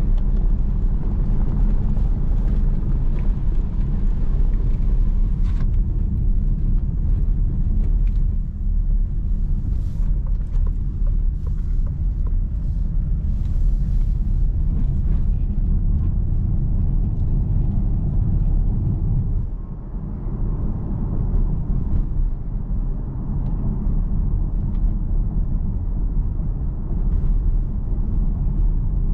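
Steady, rough tyre and road rumble inside the cabin of a Citroen C5 Aircross as it rolls slowly over a cobbled road, with small knocks and rattles from the suspension and cabin.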